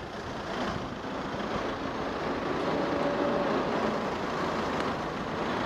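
Steady rush of city road traffic, with a brief faint tone about three seconds in.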